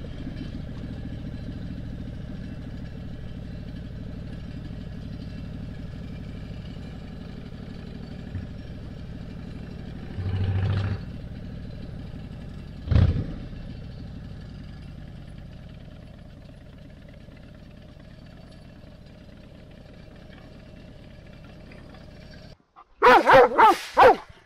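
2007 Harley-Davidson Dyna Street Bob's Twin Cam 96 V-twin running at low road speed on a dirt road, with a brief louder stretch about ten seconds in and a thump a few seconds later, then slowly getting quieter. Near the end it cuts abruptly to a large dog barking loudly, several barks in quick succession.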